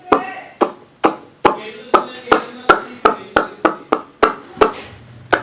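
A run of about fifteen sharp knocks or taps, each with a short ringing tone, coming roughly twice a second and speeding up toward the end.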